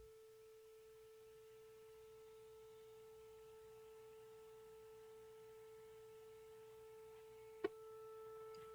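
A 440 Hz test tone playing faintly and steadily from an HTC Nexus 9 tablet, broken by a single sharp click near the end. The click is the tablet's audio fault, which adds clicks and pops whenever any audio plays.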